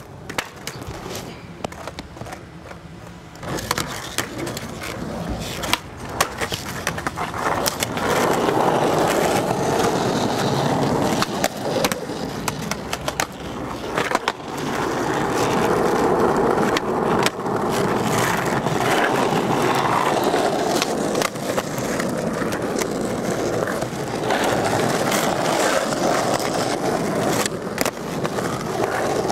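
Skateboard wheels rolling over rough asphalt, with sharp clacks of the board popping and landing during tricks.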